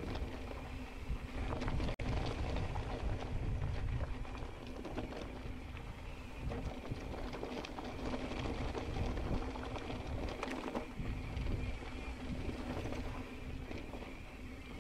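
Mountain bike riding over a dirt trail: tyre rumble and a rattle of small clicks from the bike, with wind on the microphone and a steady low hum.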